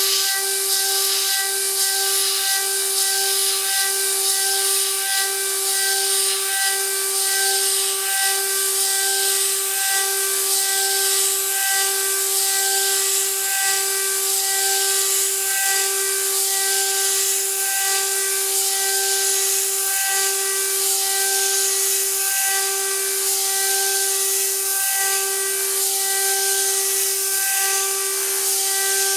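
CNC spindle running with a steady high whine while its cutter mills aluminum, a dense hissing cutting noise over the whine. The whine dips briefly every second or two.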